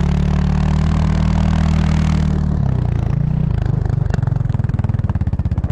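A small vehicle engine running at steady speed, then dropping about two and a half seconds in to an even, pulsing idle.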